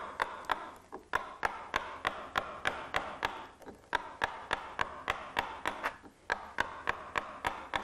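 Carver's mallet tapping a gouge into the wood in a steady rhythm, about three blows a second, roughing out a relief carving.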